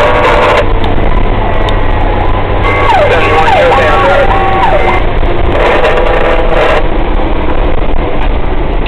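Fire engine under way, heard from inside its cab: loud steady engine and road noise, with the truck's own siren sounding over it. The siren's pitch sweeps quickly up and down about three to four seconds in.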